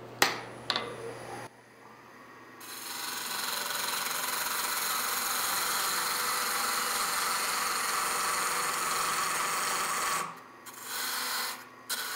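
Lathe tool cutting the end of a walnut blank spinning between centers on a wood lathe, a steady hissing cut that pauses about ten seconds in, resumes briefly and stops near the end. Two sharp clicks come in the first second.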